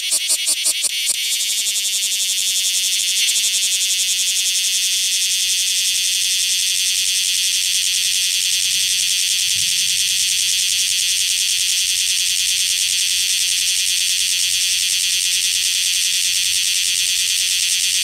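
Cryptotympana facialis (bear cicada) singing: a rapid pulsing for about the first second that runs into a loud, steady, continuous high buzz.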